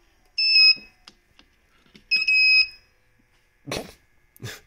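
Electronic power-supply alarm beeping twice, short high beeps about a second and a half apart, sounding as the cables of a faulty server power distribution board are wiggled and the power drops out. Two dull handling thuds follow near the end.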